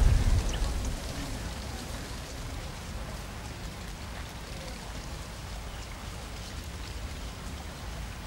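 A low rumble that dies away within the first second, then a steady outdoor background hiss with faint scattered crackles, rain-like in texture.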